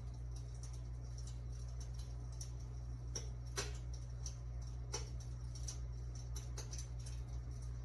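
Electric fireplace insert's built-in fire-crackling sound effect: irregular soft pops and snaps over a steady low hum.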